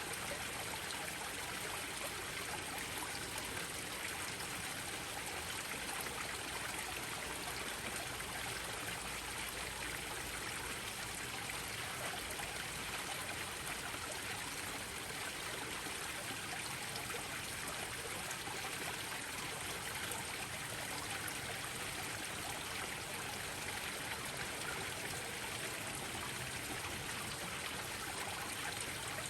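Koi pond waterfalls: water spilling and splashing steadily into the pond.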